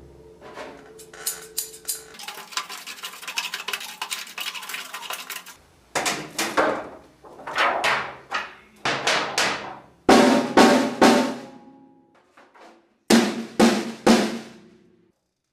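Acoustic drum kit played, mainly the snare: a few light hits, then a dense run of quick soft strokes, then spaced louder strikes, ending with three hard hits that ring out.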